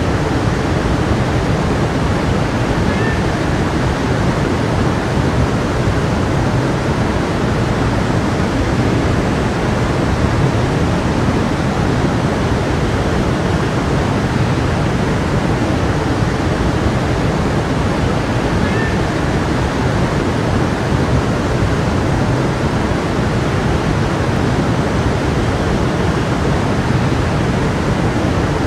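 A stream flowing with a steady, unbroken rush of water.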